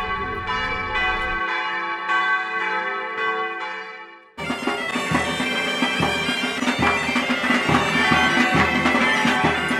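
Bagpipe playing a melody over steady drones. It fades out just after four seconds in and gives way abruptly to background music with a steady beat.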